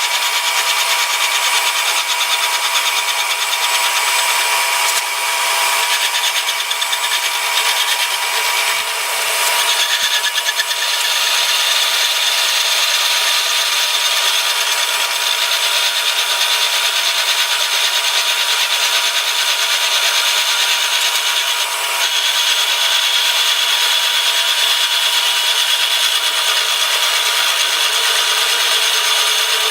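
Milling machine cutting the ways of a mill vise base: a steady, high-pitched metal-cutting whine and rasp with a fine even rhythm. The tone of the cut changes about ten seconds in.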